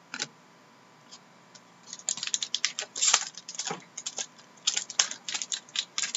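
Trading cards and their packaging being handled on a table: one click just after the start, then from about two seconds in a rapid, irregular run of crisp clicks and crackles.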